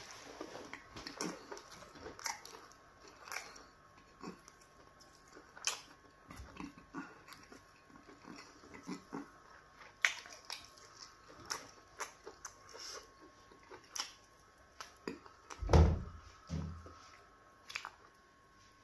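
Close-miked eating with the hands: wet lip smacks and chewing clicks, scattered and irregular, with one louder low thud about 16 seconds in.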